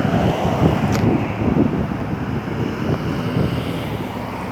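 Wind buffeting the microphone: an uneven, gusty low rumble, with a faint click about a second in.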